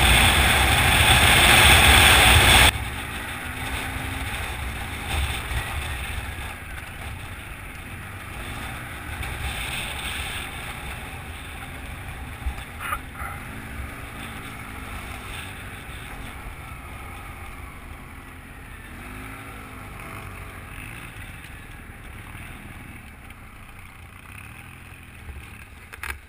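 Polaris Sportsman ATV engine running, with heavy wind noise on the microphone for the first few seconds. The noise then drops suddenly to a quieter, steadier engine sound with faint rises and falls in pitch.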